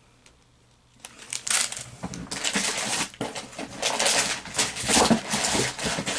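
Snack wrappers and packaging rustling and crinkling as someone digs through a box of snacks by hand, with many quick crackles. It starts about a second in, after a brief near-silence.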